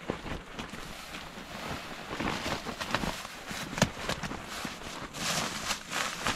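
Rustling and crinkling of a nylon air sleeping pad and inflatable pillow being handled and pressed into place, with a sharp tap a little under four seconds in.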